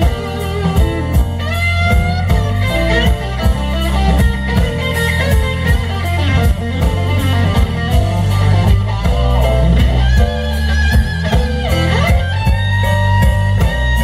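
Live blues band playing an instrumental stretch. A Stratocaster-style electric guitar plays lead with bending notes over electric bass and a steady drum-kit beat.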